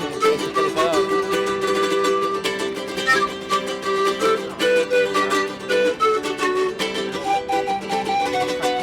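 Music on a small plucked string instrument: a quick melody of picked notes over a steady low held note.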